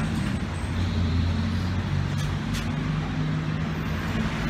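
A motor vehicle engine running close by: a steady low hum over street traffic noise.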